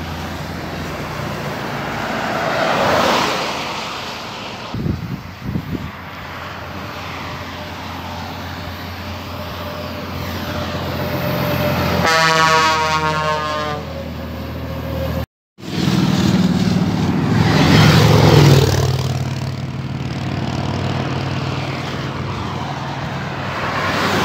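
Highway traffic passing close by, with engine and tyre noise swelling and fading as vehicles go past one after another. About twelve seconds in, a passing truck sounds its multi-tone ship-style air horn (a "buzina marítima") for about two seconds.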